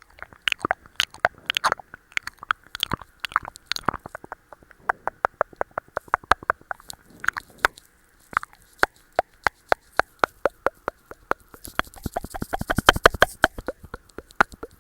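ASMR mouth sounds close to the microphone: a long run of quick wet clicks and pops from the tongue and lips. They come a few at a time at first, then settle into a fast, even run of about four or five a second, and turn denser and hissier near the end.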